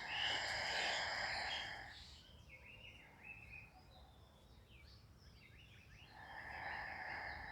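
A man doing bhastrika pranayama: a long, deep breath rushing through the nose for about two seconds, a pause, then another deep breath near the end.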